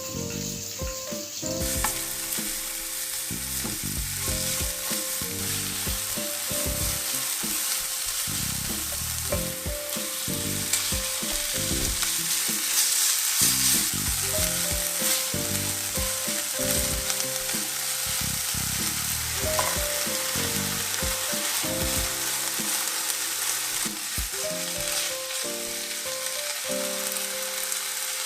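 Food frying in hot oil in a miniature pan, a steady sizzle, with background music playing over it.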